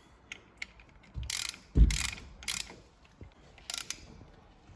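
Ratchet wrench clicking in several short bursts as a brake caliper bolt is tightened down, with a single dull knock about two seconds in.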